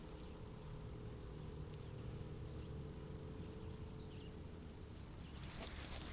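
Quiet outdoor ambience with a low rumble of wind on the microphone, and a bird giving a quick run of about six high chirps about a second in, with one more faint chirp a little later.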